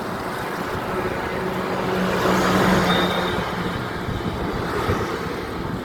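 Steady roar of floodwater pouring through the opened gates of Bargi Dam, with a low engine-like hum that swells about halfway through.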